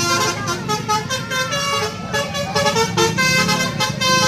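Tour bus telolet horn, a multi-note musical air horn, playing a quick tune of short held notes that change pitch, over a low rumble of engine and traffic.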